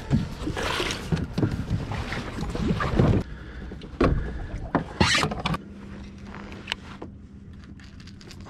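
Knocking and clattering of gear being handled in a plastic fishing kayak, hatch and hull thumps among them, for about five seconds; then it quietens to a steady low hum with a few light taps.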